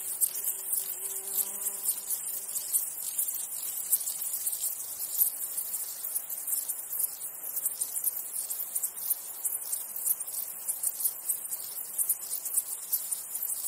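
Insects stridulating in a dense chorus: a very high, fast, uneven pulsing chirr that never lets up, typical of grasshoppers.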